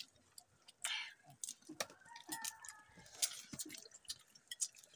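People eating cooked crabs by hand: a scatter of short cracks and clicks as shell is bitten and broken, with sucking at the meat.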